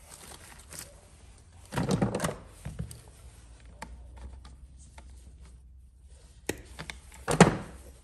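Handling noises on a workbench as a black plastic wiring box and crimped red wires are shifted about by hand: two dull thunks, about two seconds in and near the end, with scattered light clicks between.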